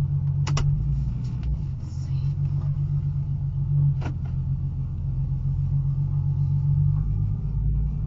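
Ford Mustang on the move, a steady low rumble with two sharp clicks, one about half a second in and one about four seconds in. The uploader traced the weird noise to the car's new brake rotors.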